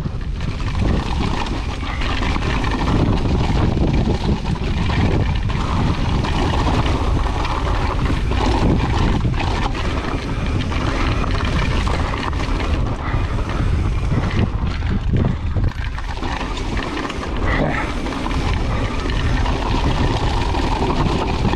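Wind rushing over the camera microphone with tyres crunching over loose rock and a 2022 Pivot Firebird full-suspension mountain bike rattling and clattering at downhill race speed, with frequent short knocks from hits on the rocks.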